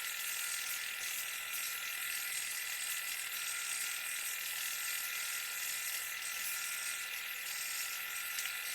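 Wood lathe running steadily, with a constant high hiss and whine and no change in pace.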